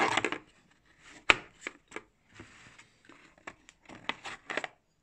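Metal adapter fittings being handled in a hard plastic tool case: a sharp click about a second in, then scattered lighter clicks and knocks with a brief rustle, stopping near the end.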